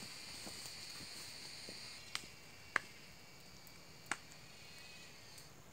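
Faint steady high-pitched insect trill, with three short sharp ticks spread through the middle.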